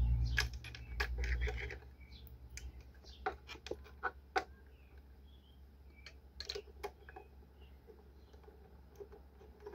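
Scattered small clicks and scratches of a screwdriver and cable ends being worked into the screw terminals of an alternator and solar charger, with a low rumble in the first two seconds.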